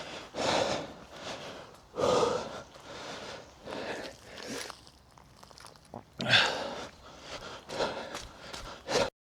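A man breathing hard in rough, noisy gasps as he runs, with footsteps between the breaths. The sound cuts off suddenly near the end.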